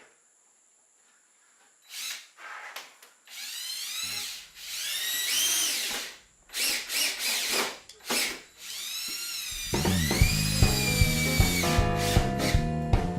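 A power drill driving screws into sheetrock in about half a dozen short runs, its motor whining up and winding down each time. About three-quarters of the way through, background music with a drum beat comes in.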